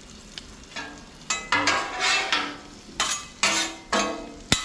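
Metal spatula scraping repeatedly across the steel cooktop of a Blackstone griddle, pushing small potatoes through sizzling bacon grease, with a sharp clack near the end.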